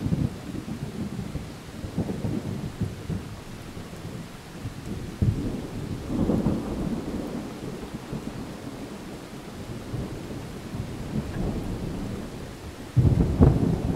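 Distant thunder rolling: a rumble dies away, another swells up about five seconds in and fades, and a louder peal breaks in near the end, over a steady hiss of rain.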